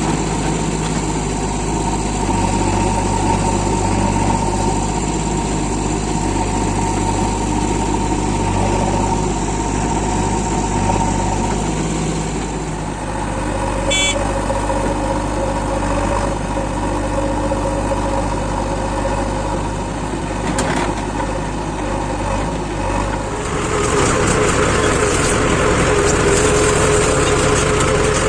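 Diesel engines of a JCB 3DX backhoe loader and a Mahindra 275 DI tractor running steadily during mud loading. About 23 seconds in the sound becomes louder and noisier.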